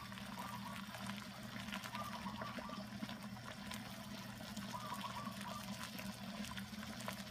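Water at a rolling boil in a Grainfather electric brewing kettle, helped along by a 1,000-watt immersion heat stick: steady bubbling with many small crackles. A low steady hum runs under it.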